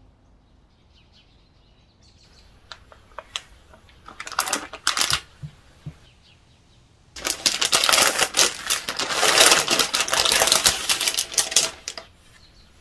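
Packaging being handled and crinkled: a few sharp clicks, two short bursts of rustling, then about five seconds of dense, continuous crinkling.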